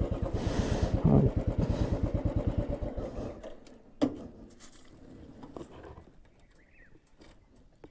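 Royal Enfield single-cylinder motorcycle engine idling with an even, steady thump, then switched off about three and a half seconds in. A sharp click comes about half a second later.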